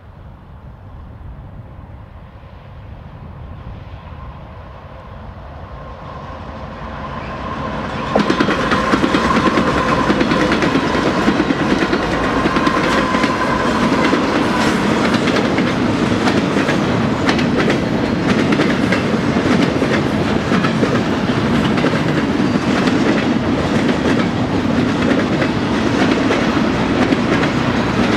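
BNSF intermodal freight train approaching and going by at speed. The sound grows steadily louder, then about eight seconds in it jumps to a loud, steady rumble with the clickety-clack of double-stack container and trailer cars rolling past.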